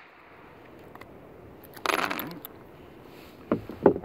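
Spent .22 long rifle brass cases clattering out of a revolver's cylinder onto a wooden bench about two seconds in, followed by two sharp clicks of cases near the end.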